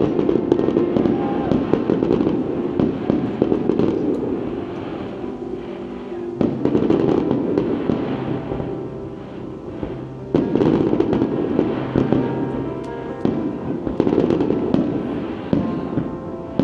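Aerial fireworks shells bursting in quick succession with crackling. The barrage swells louder about a third of the way in, again past the middle and near the end.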